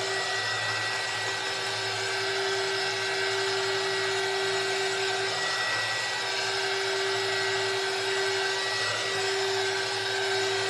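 Handheld craft heat tool running steadily, its fan whirring with a constant hum, blown over wet paint to dry it.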